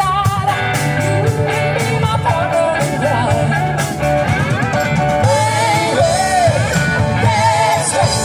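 Live rock band playing through PA speakers: drums and electric guitar, with a singer's voice over a steady bass line.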